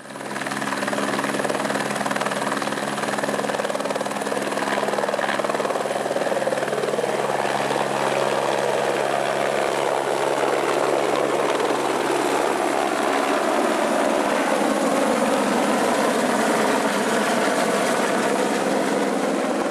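Eurocopter AS550 Fennec military helicopter taking off: its turbine and rotor run at full power as it lifts from the ground, hovers and flies off overhead. The sound is loud and steady, with a tone that dips in pitch and comes back up about two-thirds of the way through as the helicopter moves off.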